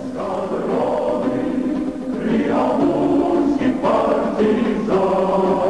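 A choir singing held chords that change every second or so.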